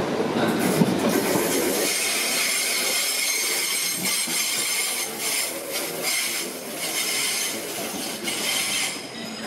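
Transport for Wales multiple-unit train running past at close range: wheels on the rails with a steady high whine over the rumble. A few clicks come about five to seven seconds in, and the sound eases a little near the end.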